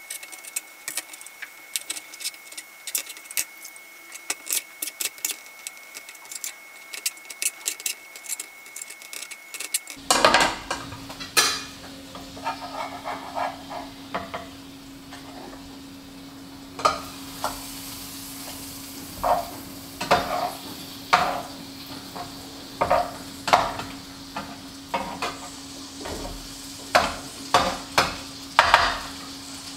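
A knife chopping green beans on a plastic cutting board, a quick run of sharp taps. About ten seconds in this gives way to basa fish fillets frying in butter and olive oil on low heat: a steady sizzle, with a spatula scraping and knocking against the pan over a low steady hum.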